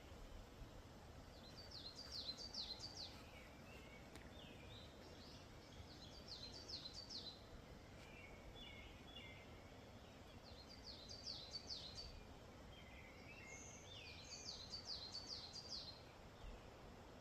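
Wild birdsong: a short phrase of quick, high, falling notes, repeated four times about every four seconds, with softer lower notes between the phrases, over faint background hiss.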